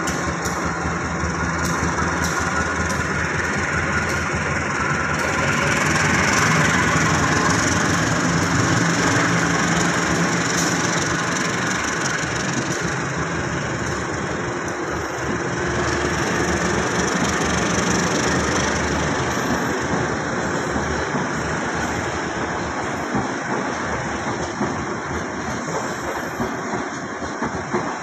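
Diesel locomotive idling, a steady low engine hum that grows fainter in the second half.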